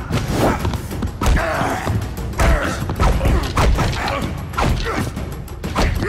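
Fistfight sound effects: a quick series of punch and body-impact thuds and whacks over action music.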